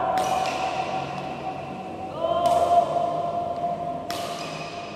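Badminton racket hitting a shuttlecock three times, about two seconds apart: each a sharp crack followed by a short echo. A steady tone runs underneath.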